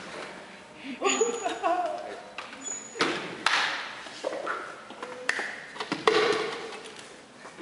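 Clear pitchers and a blender jar knocked and set down on a table, about four sharp clunks, with wordless vocal noises from the performers early on.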